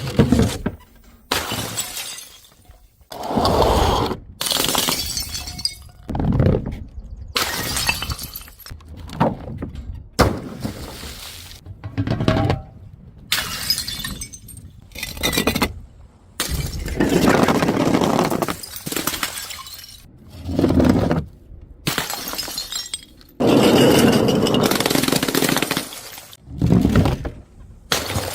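Glass bottles and jars smashing and shattering, one after another in a quick run of short edited clips, about a dozen, each cut off abruptly.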